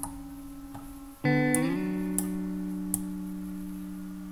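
Background music of sustained guitar-like chords, with a new, louder chord coming in a little over a second in. About four sharp mouse clicks sound over it.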